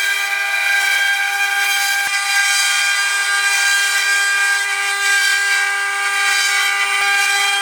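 CNC milling machine running at work, a steady high whine made of many tones.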